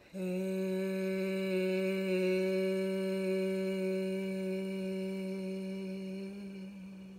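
A woman's voice toning one long, steady vowel on a single pitch through a whole exhalation. This is vocal toning, a labour comfort measure. The tone starts abruptly and fades away near the end.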